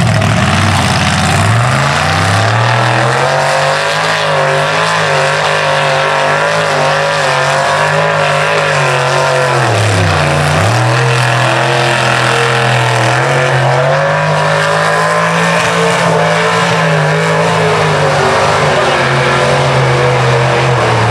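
Lifted Chevy Silverado mega truck's engine revving hard as it drives through a mud pit: the pitch climbs in the first couple of seconds, holds high, drops briefly about halfway through, then climbs back and stays high.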